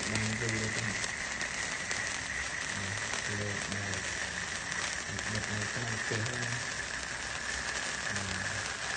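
Cake fountain sparkler burning with a steady hiss and crackle of sparks, the hiss sinking slightly in pitch as it burns.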